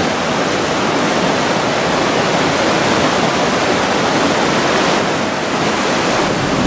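Fast, shallow mountain river rushing over rocks: a loud, steady rush of water.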